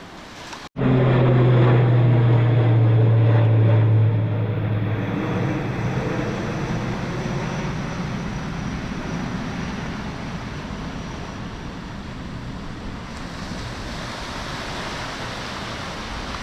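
Airplane passing low overhead after takeoff: a loud engine drone starts suddenly just under a second in, holds for about three seconds, then fades slowly into a broad rushing noise.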